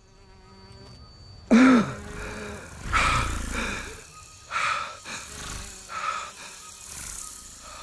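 Sound-design ambience of an alien jungle: insect-like buzzing and chittering, broken by a series of loud creature calls about every second or so. The loudest is a short call that rises and falls in pitch about a second and a half in.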